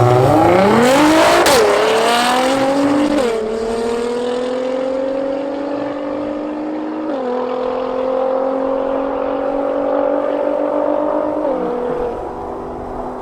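Nissan GT-R's twin-turbo V6 with an Armytrix aftermarket exhaust under hard acceleration, the engine note climbing steeply and then dropping sharply at four upshifts, each followed by a slower climb. It is loudest about a second in and fades steadily as the car pulls away.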